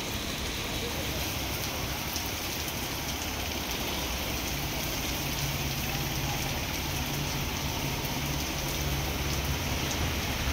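Heavy rain pouring steadily onto a wet paved road. A low steady hum joins about four and a half seconds in.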